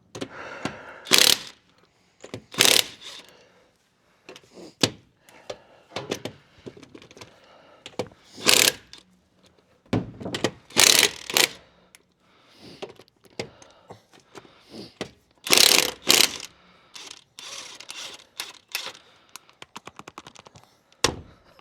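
Impact wrench working the lug nuts off a pickup's wheel in short hammering bursts, with metal clinks and clatter between them.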